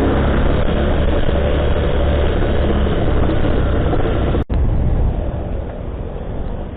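Motorcycle on the move in traffic: a steady low engine and road rumble. It cuts off sharply about four and a half seconds in and resumes a little quieter.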